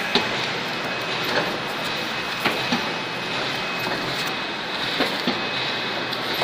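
Corrugated carton die cutting and creasing machine running with a steady mechanical hum and a faint high whine. Irregular sharp clacks come through it as corrugated cardboard sheets are handled and fed.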